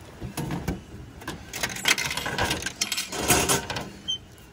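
Clicks, knocks and scraping of a vending machine's hinged clear plastic takeout flap being pushed open and a cardboard box being slid out of the slot. The handling comes in several bursts, with a sharp click near the end.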